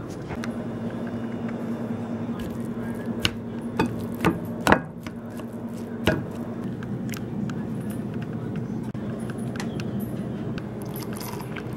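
Kitchen utensils knocking and scraping against dishes, with a cluster of sharp taps a few seconds in and lighter clicks after, over a steady hum.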